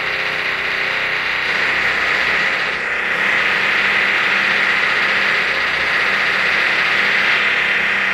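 A power tool, such as a drill, running continuously through a wall with a steady high whine and rattle.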